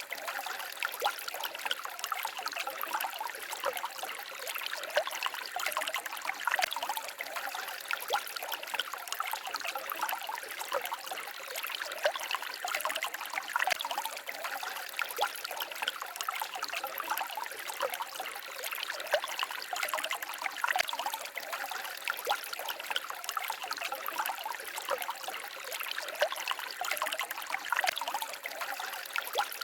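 Small forest stream babbling and trickling over stones: a steady rush of water with many small splashes.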